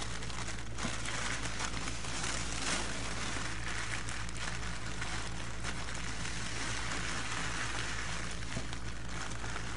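Wrapping paper rustling and crinkling as gift boxes are being wrapped: a continuous dense crackle of fine ticks.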